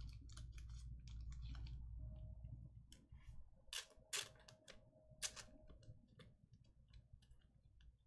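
Faint, scattered clicks and ticks of trading cards being handled and set down, with a few sharper clicks around four to five seconds in.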